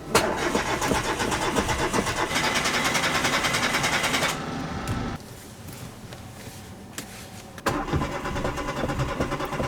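Chevrolet Matiz's starter motor cranking the engine over in a fast, even rhythm without it catching, stopping for about three seconds, then cranking again: a hard-starting car that won't fire.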